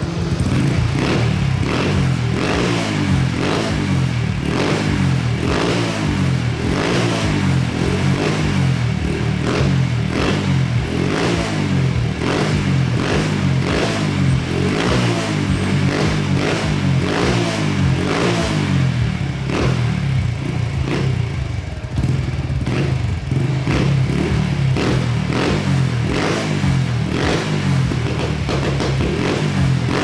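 Honda Wave 110R's single-cylinder four-stroke engine running through an aftermarket ORBR power pipe exhaust, revved up and down over and over.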